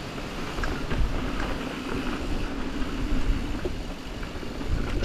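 Yeti SB140 full-suspension mountain bike ridden along dirt singletrack: steady tyre roll and wind rumble on the camera microphone, with scattered clicks and knocks from the chain and frame over the trail surface.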